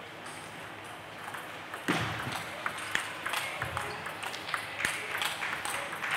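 Table tennis rally: a plastic ball clicking off rubber-faced bats and the table in quick succession, several hits a second, starting about two seconds in after a steady hall hum.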